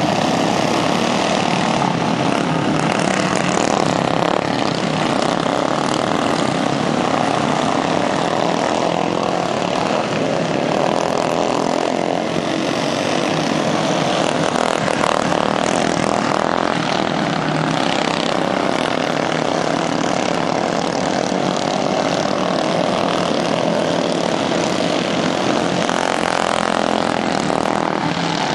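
Several racing lawnmower engines running flat out together on a dirt track, a loud, steady overlapping drone that stays level throughout.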